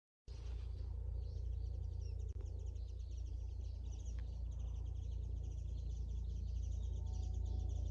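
Small birds chirping and calling over a steady low rumble, starting suddenly just after the beginning.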